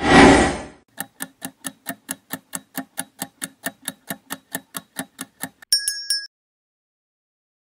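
Quiz-game sound effects: a loud whoosh for the transition, then a countdown timer ticking like a clock about four to five times a second for some four and a half seconds, ending about six seconds in with a short bright ding that marks time up and the answer reveal.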